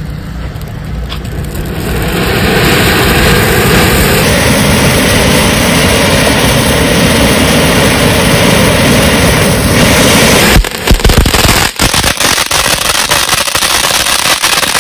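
Ayyan 'Lemon Tree' ground fountain firework spouting sparks with a loud, steady hiss that builds over the first two seconds. About ten and a half seconds in the fountain stage ends and the firework changes to rapid crackling.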